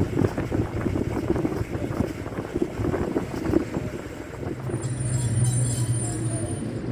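Steam saddle-tank locomotive working, with rough, irregular steam noise as it blows steam from its chimney and cylinders. About four and a half seconds in, this gives way to the steady low hum of a diesel engine, a narrow-gauge diesel locomotive approaching.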